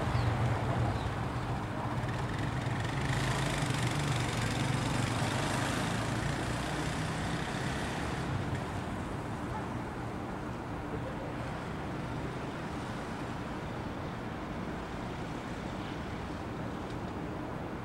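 Steady low rumble and hiss of distant city traffic, swelling with a louder hiss between about three and eight seconds in, then settling to a steady background.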